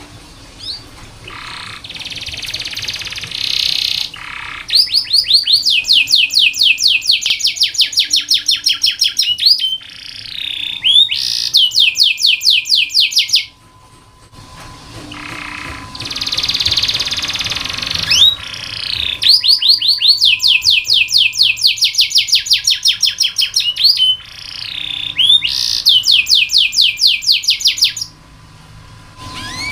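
Domestic canary singing: phrases of rapid, evenly repeated trill notes lasting several seconds each, alternating with harsher, rasping passages and brief pauses.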